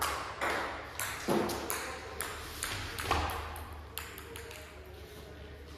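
Table tennis rally: the ball clicking sharply off the bats and the table, a few irregular clicks a second.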